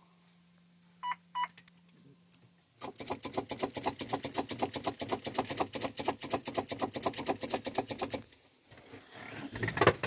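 Two short electronic beeps, then about five seconds of fast, even clicking, about six clicks a second, that stops abruptly: the Cummins ISX's starter solenoid chattering on a turn of the key while the engine does not crank. The driver takes it for a failing starter.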